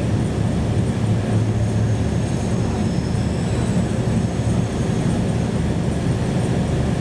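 Steady rumble of a tram running along the line, heard from inside the carriage. A faint high whine joins in about two seconds in and fades out a couple of seconds later.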